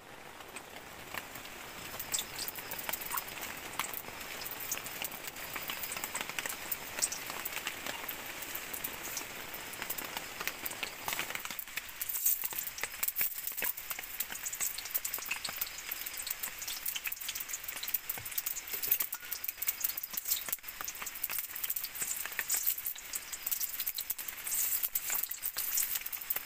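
Eggplant frying in hot oil in a pan: a dense sizzle full of fine crackles, with rain falling behind it. The sizzle thins out about halfway through.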